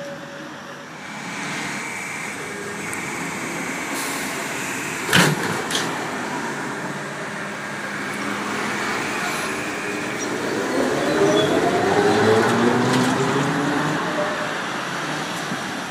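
Articulated trolleybus with traffic noise around it: a single sharp clunk about five seconds in, then from about ten seconds the electric traction motor's whine rising in pitch as it pulls away from the stop.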